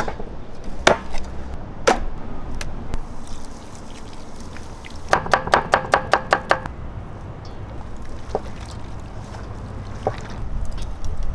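Heavy cleaver chops through raw ribs, four strikes about a second apart, then a rapid run of knife strikes on a wooden board, about seven a second with a ringing tone, for a second and a half.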